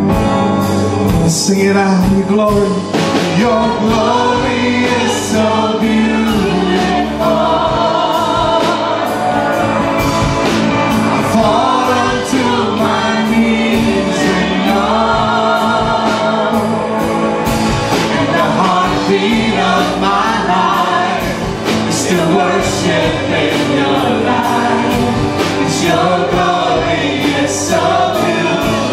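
Live worship band performing a gospel-style song: a male lead singer and several backing singers over electric guitars and keyboard, with steady percussion hits.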